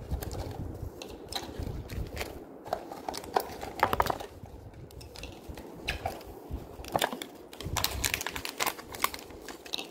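Hands handling and opening blind-box packaging: irregular small clicks, taps and crinkles of cardboard and plastic.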